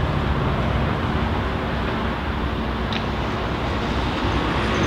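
Steady outdoor background noise, a low rushing haze with no speech, and a faint short tick about three seconds in.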